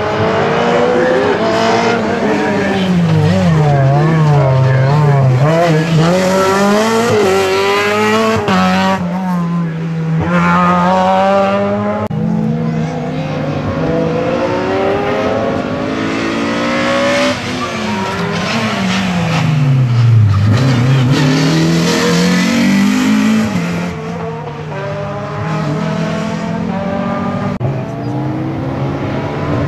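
Racing car engines on a slalom course, revving hard and backing off over and over, so the engine note keeps climbing and falling as the cars accelerate and brake between the cones.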